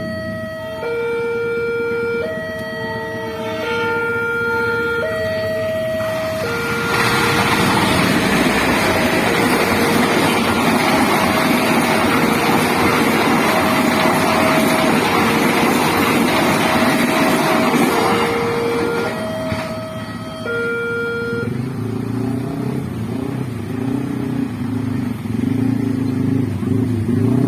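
Level crossing alarm siren sounding a two-tone electronic melody, stepping back and forth between a lower and a higher note, while a train passes with a loud rushing rumble for about twelve seconds. About three quarters of the way through the siren stops, and idling motorbike and car engines take over as road traffic gets moving again.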